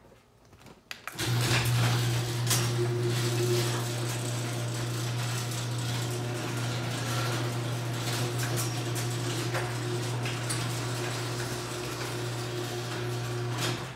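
LiftMaster garage door opener closing the overhead door: the motor starts about a second in with a steady low hum over the rattle of the drive and door panels, with a few clicks, then stops abruptly near the end as the door reaches the floor.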